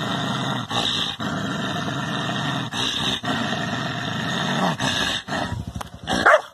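Dog growling at its own reflection in a mirror, taking it for another dog: long, steady growls broken by short pauses for breath. A brief louder sound comes near the end.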